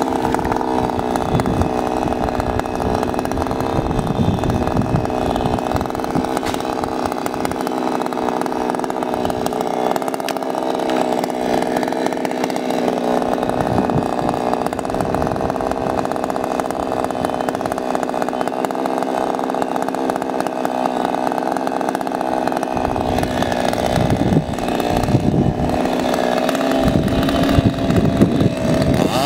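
Two-stroke chainsaw idling steadily at a constant pitch, not cutting. Some knocks and handling noise come in over the last few seconds as the saw is lifted into position.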